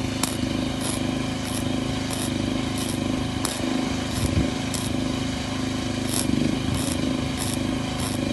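Steady machine hum, engine-like, with a light high tick recurring roughly every half second.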